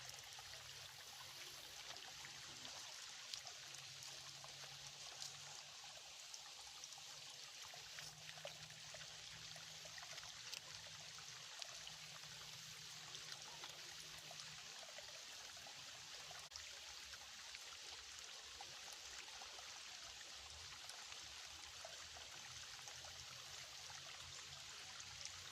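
Faint, steady trickling and running of a small, shallow creek.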